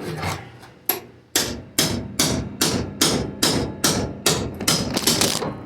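Hammer blows on the sheet-steel body of a 1980 Jeep CJ7, a couple of separate strikes and then a steady run of about two ringing blows a second.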